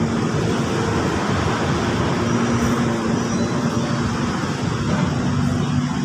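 Steady vehicle engine noise, a low even rumble with a faint steady hum and no sudden events.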